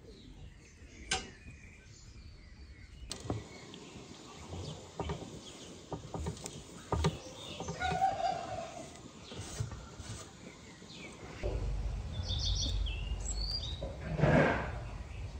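Soft clicks and taps as cookies are pressed into desiccated coconut and set down on a ceramic plate, with birds chirping in the background. Near the end a low rumble comes in and a brief louder sound stands out.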